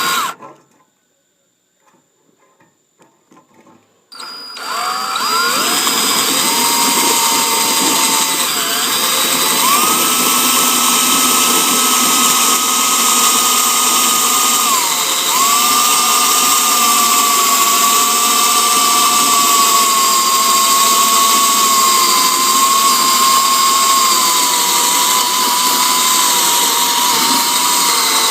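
Electric drill cutting out a spot weld with a spot weld removal bit. It stops shortly after the start, then starts again about four seconds in and runs continuously under load, its motor whine wavering in pitch as the bit bites into the weld.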